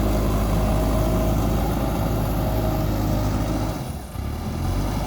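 JCB 3DX backhoe loader's diesel engine running steadily, with a brief dip in the sound about four seconds in.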